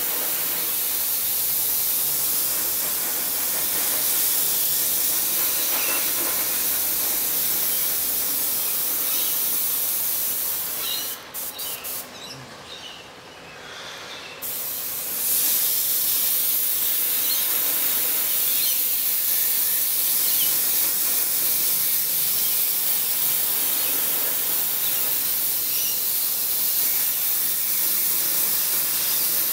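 Airbrush spraying paint: a steady hiss of air. About eleven seconds in, the hiss stops and starts in a few quick spurts, drops out for a few seconds, then resumes steadily.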